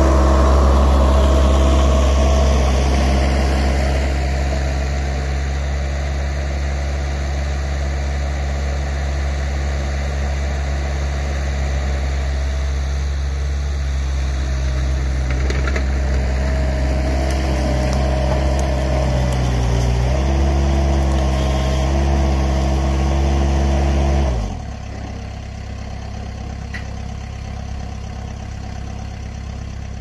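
Vermeer stand-on mini-skidsteer's engine running steadily at high throttle, growing quieter a few seconds in as the machine moves off. Around twenty seconds in its pitch shifts, and about twenty-four seconds in the engine note falls away sharply, leaving a quieter low hum.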